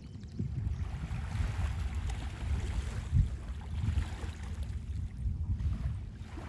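Wind buffeting the microphone in an uneven, gusting rumble over small waves lapping at the sand.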